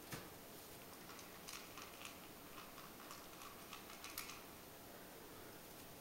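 West Highland white terrier puppy eating from a bowl: faint, irregular small clicks and crunches, which stop about four and a half seconds in.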